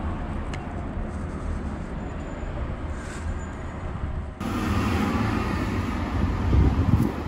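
Outdoor street ambience: a steady low hum of distant traffic with no voices. About four seconds in the background noise changes abruptly and grows a little louder, with a short surge of low rumbling near the end.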